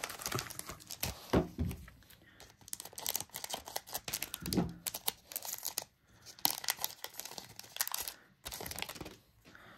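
Foil Pokémon booster pack crinkling in the hands and being torn open, in irregular crackly bursts.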